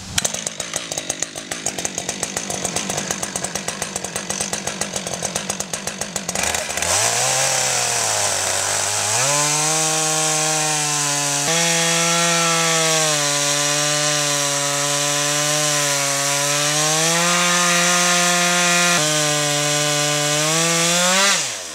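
Husqvarna 562 XP two-stroke chainsaw (just under 60 cc) idling with an even pulse, then revving up about six seconds in. It settles into high, steady revs under load as its 24-inch bar rips lengthwise through a white pine log to take the first slab. The revs drop off at the very end.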